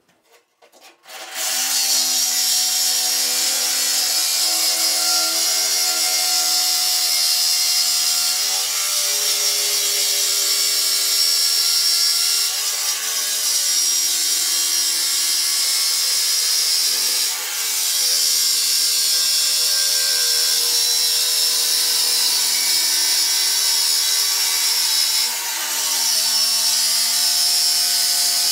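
Angle grinder cutting into the steel shell of an electric water heater tank. It starts about a second in and runs steadily, with brief dips in its pitch and level a few times as the load changes.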